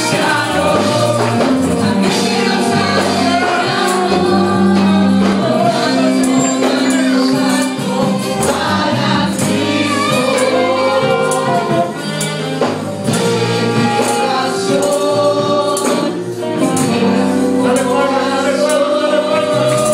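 Live worship band playing an upbeat gospel song, with singing over electric guitar, bass and drums, and steady percussion throughout.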